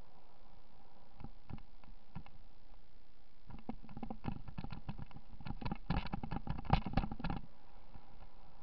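Rapid, irregular clattering and knocking, the rattle of a handheld camera jolting along a rough, cracked path, thickening about three and a half seconds in and loudest near the end before stopping, over a steady faint hiss.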